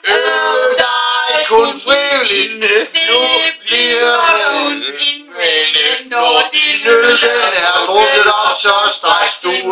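A group singing a song in Danish, with men's voices loudest.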